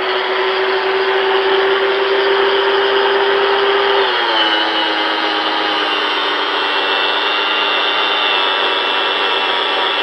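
Harbor Freight angle grinder spinning a buffing wheel, a loud steady motor whine with rubbing noise. About four seconds in, the pitch drops a step and stays lower as the buff is worked against the polished aluminium rim.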